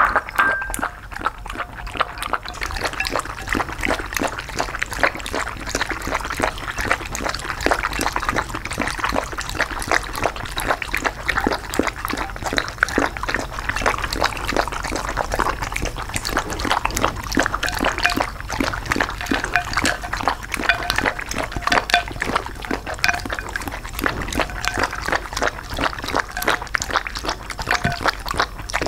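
Dogs lapping liquid from plates, a fast, unbroken run of wet tongue smacks and clicks close to the microphone.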